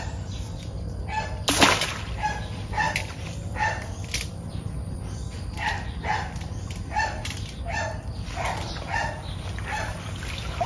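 A farm animal calling over and over in short calls, irregularly about one or two a second, with one brief, louder noisy burst about one and a half seconds in.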